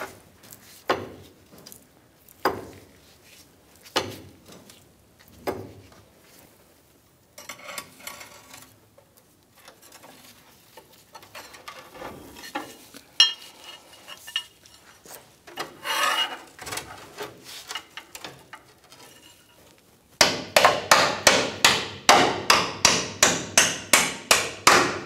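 Ratchet wrench running down the axle pivot bolt, a loud, even clicking of about three strokes a second through the last five seconds. Before it come a few sharp metallic knocks about a second and a half apart, then metal parts scraping and clinking as the bolt is fitted.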